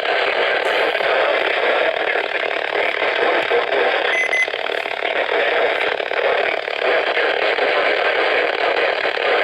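Weather radio receiver hissing with steady static and no voice: the weak, distant NOAA Weather Radio station's signal has faded out into noise.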